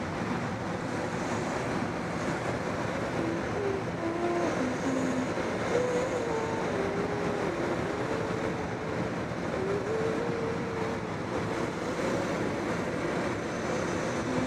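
Steady rush of air over a glider's canopy in flight, heard from inside the cockpit. A thin tone wanders up and down in pitch through the middle of it.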